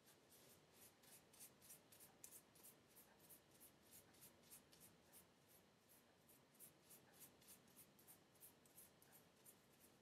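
Faint, quick rustling and scratching of fingers working product through wet, coily hair, about three to four soft strokes a second.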